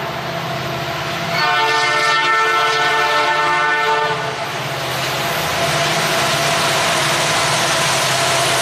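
Norfolk Southern diesel freight locomotive's horn sounding one long chord from about one and a half to four seconds in. Then the rising, steady noise of the locomotives and the train's wheels on the rails as the train closes in and reaches the camera.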